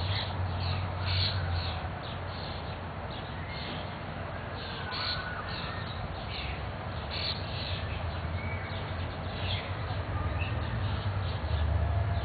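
Backyard birds calling, many short high calls repeated irregularly, over a low steady rumble.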